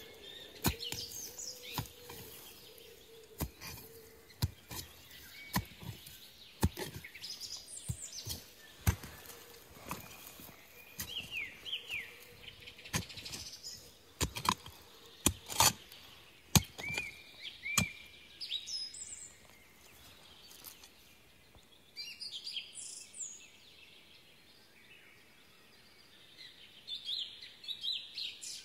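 Irregular sharp knocks and clicks as rusty iron shell fragments and a digging tool are handled on forest ground. The clicks come thick for the first half and stop about two-thirds of the way in. Small birds chirp briefly now and then throughout.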